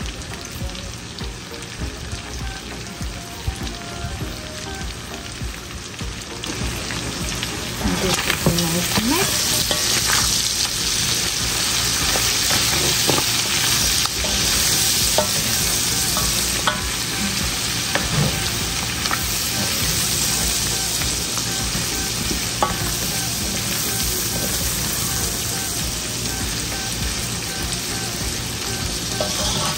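Shrimp, chicken, sausage and vegetables sizzling in a frying pan as they are stirred, with a few knocks of the utensil against the pan. The sizzle gets louder about eight seconds in.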